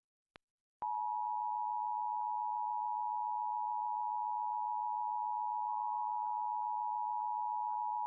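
Emergency Alert System attention signal: a steady two-tone 853/960 Hz tone that starts about a second in, after a short click, and holds without change.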